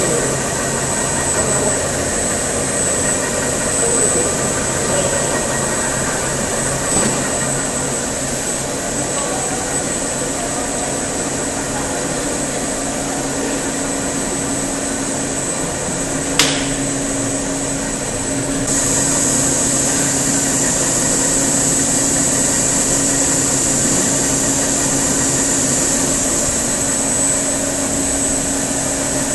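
Separator film slitting machine running: a steady mechanical hum with a constant high whine. A single sharp click sounds a little past halfway, and the whine grows louder about two seconds later.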